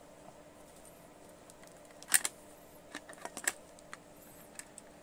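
Light clicks and taps of multimeter test probes being handled and set against a motherboard. A loud pair of clicks comes about two seconds in, then a quick run of smaller ones over the next second and a half, over a faint steady hum.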